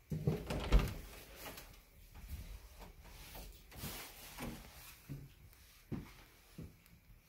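Door handling: a loud knock with rubbing about a second in, then scattered bumps, and a sharp click about six seconds in as a wooden panel door is pushed open.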